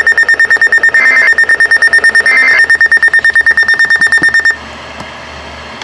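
Emergency alert attention tone: a loud, high electronic beep pulsing rapidly, about ten pulses a second, with a short higher note about every 1.3 seconds. It stops abruptly about four and a half seconds in, leaving a quiet steady hum.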